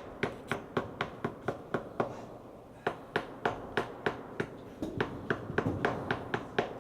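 A quick series of sharp taps or knocks, like a hand tool striking plaster, about three or four a second at first, then more spread out and uneven.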